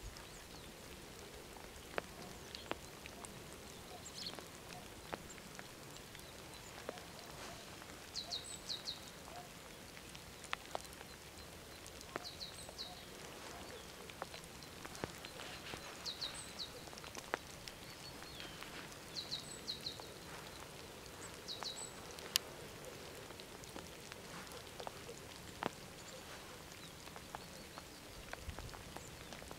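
Faint wet-weather ambience: scattered drips of water tapping on surfaces, and a small bird giving short clusters of high chirps every few seconds.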